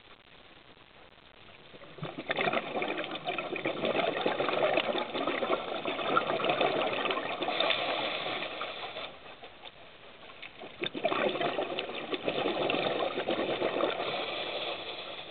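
Scuba diver's exhaled regulator bubbles rushing and crackling in the water at the camera, in two long exhalations, the first about seven seconds long and the second about three, with a quieter pause between them.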